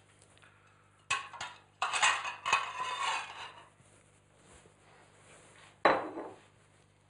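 Household objects and glassware being handled: a couple of sharp knocks about a second in, then about two seconds of rattling clatter, and one sharp knock a little before six seconds.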